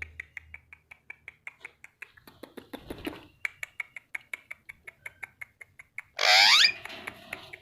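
Pet parrot making a fast series of short clicks, about five a second, then giving one loud squawk about six seconds in.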